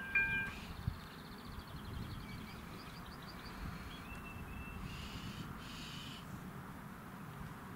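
The level crossing's electronic warning bell sounds its last tone and stops about half a second in, with a low thump just after. A small bird then twitters and whistles over faint steady outdoor noise.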